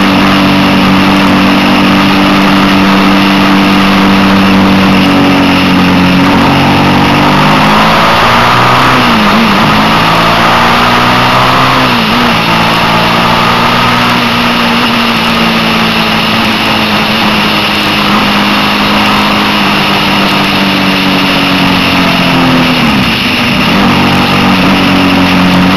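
Suzuki SV650's V-twin engine running at a steady road speed under loud wind rush, heard from the moving motorcycle. The engine note dips briefly and recovers about three times.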